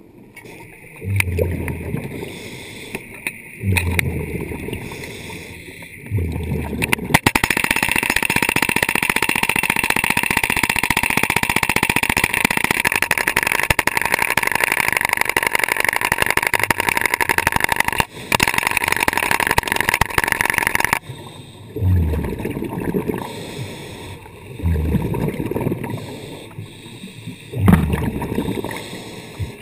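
A Stanley hydraulic hammer breaker, heard underwater, pounds rock in a steady, rapid hammering that starts about seven seconds in, breaks off for a moment, and stops about twenty-one seconds in. Before and after it, the diver's scuba regulator breathing and exhaled bubbles come every few seconds.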